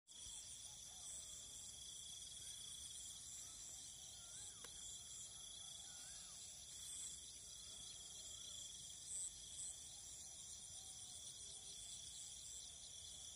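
Steady chorus of crickets and other insects, several high trills overlapping without a break, with a few faint bird calls in the middle.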